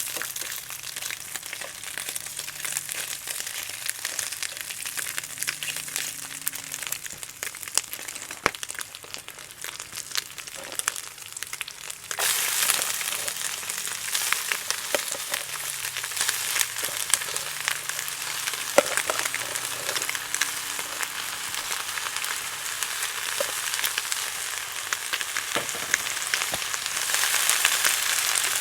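Food frying in a pan over a wood fire: a steady sizzle with scattered crackles. About twelve seconds in, the sizzle suddenly grows louder, and it swells again near the end.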